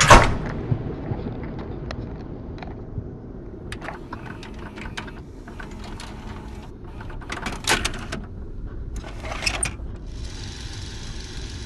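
A sudden loud knock at the very start, then the low rumble of a car rolling slowly over a gravel road, with scattered clusters of clicks and rattles.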